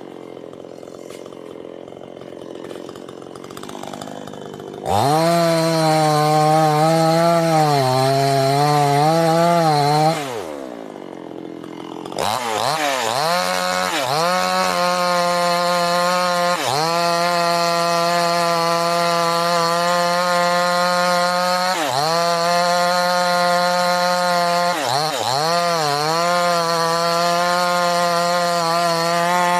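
Two-stroke chainsaw at low idle, then throttled up suddenly about five seconds in and cutting wood, its engine note sagging under load. It drops back to idle around ten seconds in, then is revved again at about twelve seconds and cuts steadily to the end, with a few brief dips in engine speed as the chain bites.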